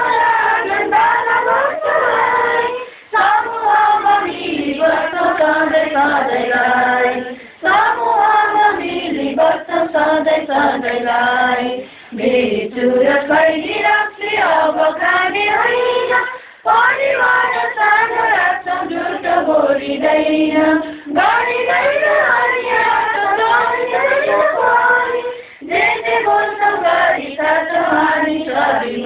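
A group of voices singing a song together in Nepali, in phrases of about four to five seconds with short breaks between them.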